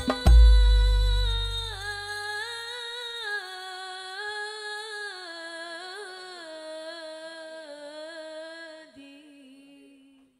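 Hadroh percussion stops with a deep drum boom that dies away over a couple of seconds. Under it, a solo voice holds one long, ornamented sholawat phrase that slowly falls in pitch and fades out near the end.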